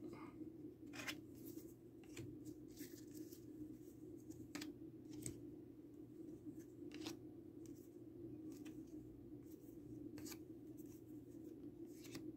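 Faint, scattered ticks and light slaps of trading cards being handled and sorted into stacks, a few seconds apart, over a steady low hum.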